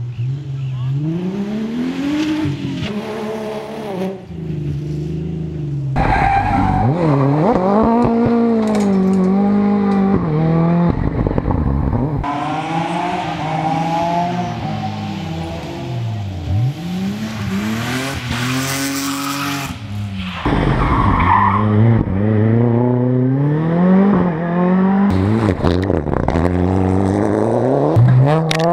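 Rally cars driven hard on a special stage: engines revving up and dropping repeatedly through gear changes and lifts, with tyre squeal. The sound changes abruptly several times as it cuts from one car to another.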